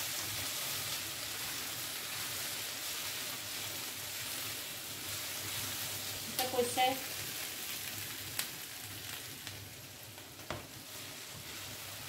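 Chicken, black mushrooms, potatoes and peppers sizzling in a stone-coated nonstick frying pan while being stirred with a wooden spatula, with a steady frying hiss that eases a little in the second half. A few sharp knocks of the spatula against the pan stand out, twice in the later part.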